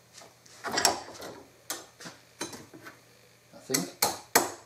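A string of sharp metallic clicks and clanks at an uneven pace, a few ringing briefly, from hand tools working a steel rod being bent into a spring fixing.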